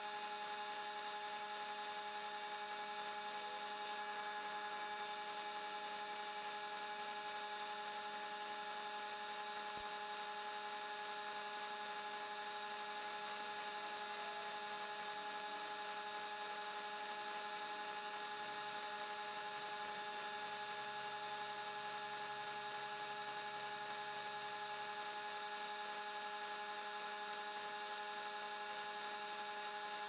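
PS134 Pro A/C refrigerant service machine running its refrigerant cleaning cycle: a steady mechanical hum made of several constant tones.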